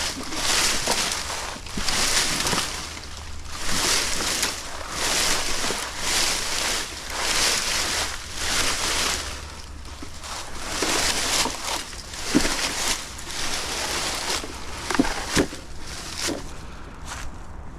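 Wooden pallet hooked and dragged over dry brush and leaves: a rough scraping swish about once a second, one with each pull, with a few sharp knocks near the end.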